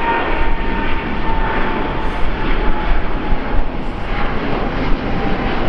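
Boeing 777 Freighter's GE90 turbofan engines running at climb power as the jet climbs out after takeoff. A steady, loud jet rumble with a thin whine that slowly falls in pitch as the aircraft moves away.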